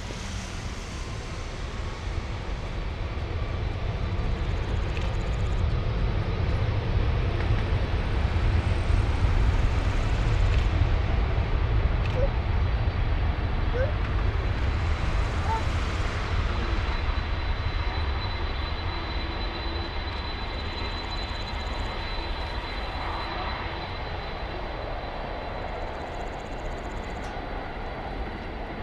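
Airbus A330-300's two Rolls-Royce Trent 700 turbofans at takeoff thrust as the jet begins its takeoff roll. A deep rumble builds over the first eight seconds or so, then slowly fades as the aircraft moves away down the runway. A thin, steady high whine comes in about halfway.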